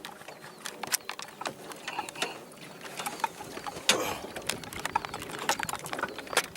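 Irregular clicks and light knocks of fishing tackle being handled in a boat while a trout is unhooked.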